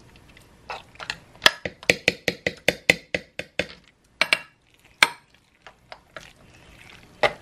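Metal spoons clinking and scraping against a mixing bowl and a ceramic baking dish as a cheese filling is stirred and meat sauce spread: a quick run of clinks, about five a second, in the first half, then a few single knocks.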